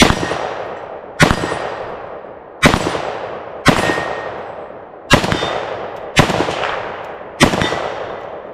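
Romanian SAR2 AK74 rifle in 5.45x39 firing about seven semi-automatic shots at a steady pace, roughly one every second and a quarter, each with a sharp crack and a long echoing decay. A faint ring from the struck AR500 steel targets follows several of the shots.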